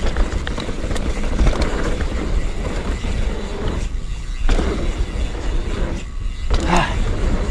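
Mountain bike rolling fast down a dirt trail: steady tyre rumble with short clicks and rattles from the bike, and wind on the microphone. The noise dips briefly twice, about four and six seconds in.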